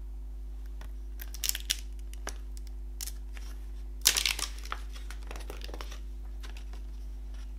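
Glossy paper CD booklet being handled and folded shut: short paper rustles, a click, and a loud crinkle about four seconds in, followed by softer rustling. A steady low hum runs underneath.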